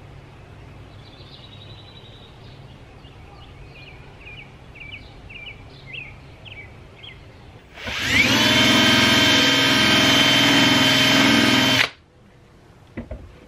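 Cordless drill with a cloth buffing wheel spinning up with a rising whine about eight seconds in, running steadily for about four seconds, then stopping abruptly. Before it, faint bird chirps.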